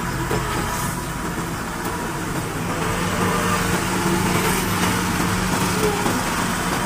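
Komatsu PC120-5 excavator's diesel engine running steadily, with a constant low hum.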